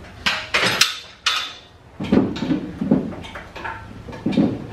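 Irregular metal clanks and rattles from a hydraulic engine hoist being worked to lift a Carolina HV20 bandsaw: a few sharp clicks early, then heavier clunks about two seconds in and again near the end.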